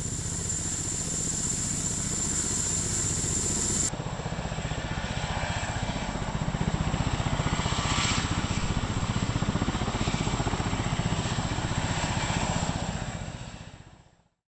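Helicopter rotors chopping in a rapid steady beat, with a high steady whine over it. The sound changes abruptly about four seconds in, then fades out near the end.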